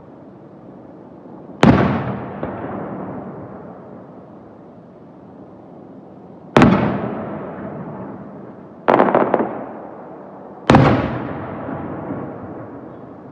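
Aerial firework shells bursting: four loud booms, about two seconds in, near the middle, and twice more in the second half. Each is followed by a long echo that slowly fades.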